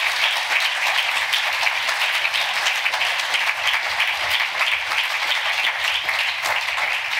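Audience applauding: many hands clapping in a dense, steady patter that keeps an even level throughout.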